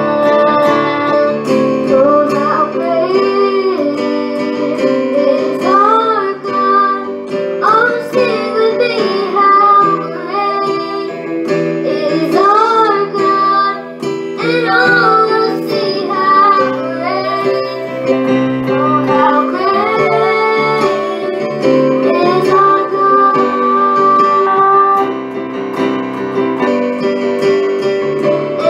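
A girl singing a worship song into a microphone, over steady instrumental accompaniment.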